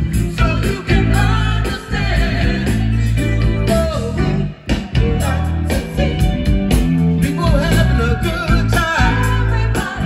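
Live band playing dance music: a singer over bass, guitar and a steady beat.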